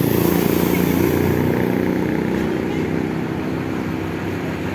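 Large bus diesel engine running with a low, steady rumble that slowly gets quieter.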